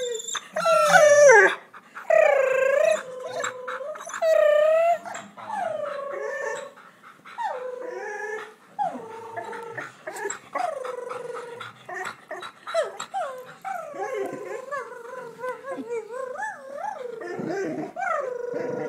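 Dog making a long run of warbling, moaning howls that dip and rise in pitch, the Chewbacca-like noise it is known for. The calls are loudest in the first few seconds, with a high squeal about a second in, then go on as softer grumbling calls.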